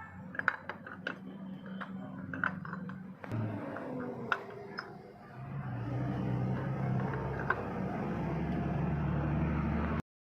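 Sharp metallic clinks and taps for the first half, then an engine runs steadily from about halfway through, cutting off abruptly near the end.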